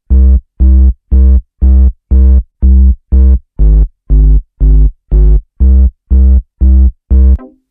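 Background music: a synthesizer chord with heavy bass pulses in a steady rhythm, about two a second. Near the end it gives way to quieter, short plucked notes.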